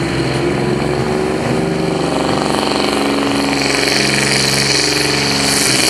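Heavy diesel engine of a competition pulling truck running hard at high revs with a steady, loud note, a hiss growing stronger in the second half as it belches black smoke.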